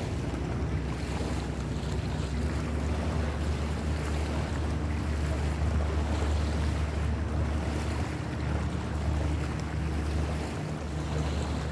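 Waterfront ambience: a steady low rumble with a faint hum under an even hiss, with no distinct events.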